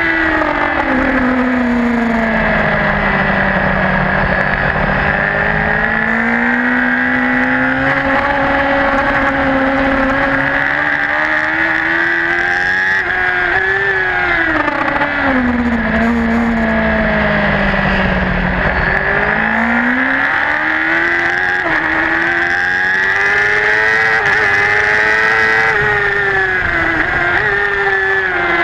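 Racing superbike engine heard onboard the bike at race speed, its pitch falling as it slows for corners and climbing again as it accelerates out, several times over.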